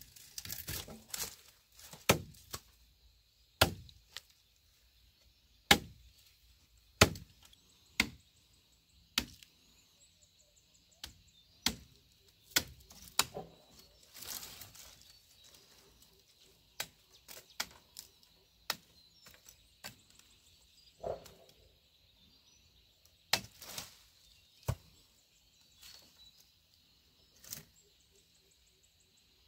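A hand-held blade chopping into green sapling stems: a series of sharp, irregular chops, roughly one a second, with short pauses between bursts of strokes.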